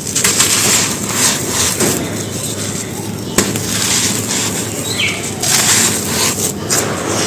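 Soft white stone cylinders being crushed and crumbled, giving crispy crunching and crackling in repeated overlapping bursts, with one sharp snap about three and a half seconds in.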